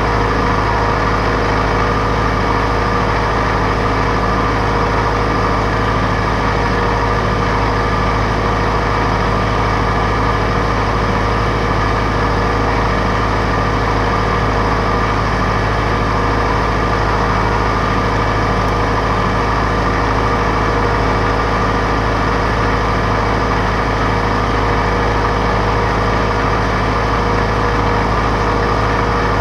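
John Deere 4066R compact tractor's diesel engine running at a steady speed while harvesting potatoes. It gives a constant, even hum with several steady tones and no change in loudness.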